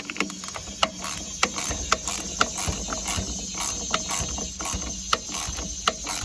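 Hand ratchet clicking in uneven strokes, about two to three clicks a second, as a bolt on a battery cable connection is tightened.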